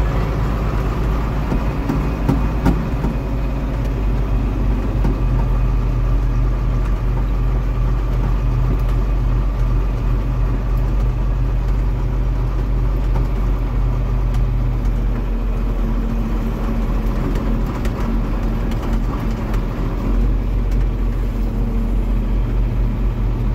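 John Deere 4430's six-cylinder turbocharged diesel running steadily, heard from inside the tractor cab while driving. The engine note shifts about fifteen seconds in.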